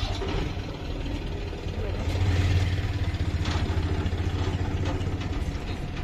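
Engine idling, a steady low throbbing hum that grows a little louder about two seconds in, with voices in the background.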